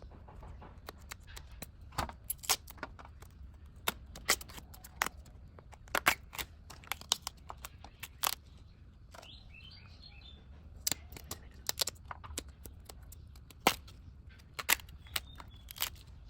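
Banana blossom being peeled and picked apart by hand: irregular crisp snaps, clicks and rustles as the tough bracts are pulled back and the florets are broken off.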